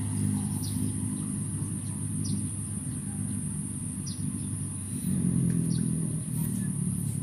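A steady low motor drone, like an engine running at a constant speed, under a steady high-pitched hiss, with short bird chirps every second or two.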